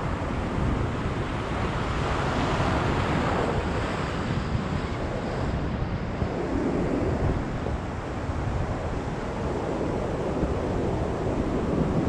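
Rough sea surf breaking and washing over shoreline rocks, the wash swelling and easing every few seconds, with wind buffeting the microphone.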